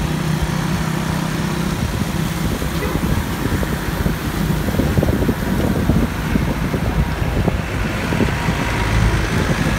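Wind buffeting the microphone, with road noise, while riding a road bike at speed in a group. A motor engine hums steadily under it for the first couple of seconds.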